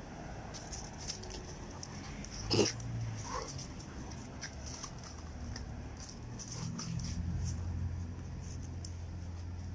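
Two dogs play-fighting, with low growling that holds steady through the last few seconds and one sharp, loud sound about two and a half seconds in.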